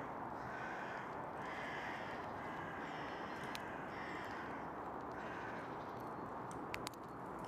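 Crows cawing in a series of about five drawn-out caws, over a steady background hiss, with a few sharp clicks in the second half.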